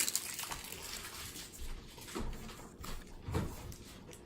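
Faint rustling of trading cards and pack wrappers being handled, with a couple of soft knocks.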